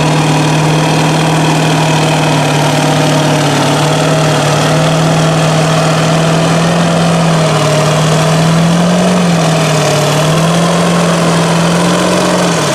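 Lifted Ford mega truck's diesel engine running at low, steady revs as it crawls through deep mud. Its note rises and sags a few times in the last few seconds.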